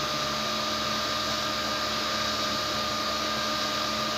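Cotton candy machine running, its spinning head throwing out sugar floss: a steady whir with a constant hum over an even hiss.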